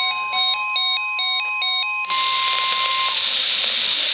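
Radio Shack 12-522 weather radio's alert alarm beeping, stepping rapidly back and forth between two pitches, over the steady 1050 Hz warning alarm tone of the NOAA Weather Radio broadcast. The alarm stops about two seconds in and the 1050 Hz tone about a second later, leaving radio static hiss.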